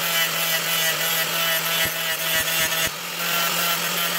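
Electric angle grinder running with a sanding disc pressed against a wooden knife handle: a steady motor whine under a scratchy sanding noise that eases briefly about three seconds in.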